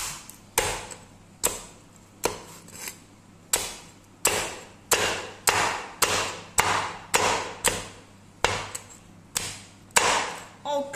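Heavy Chinese cleaver chopping through crispy-skinned roast pork and striking a wooden chopping board, one sharp chop every half second to a second, over and over.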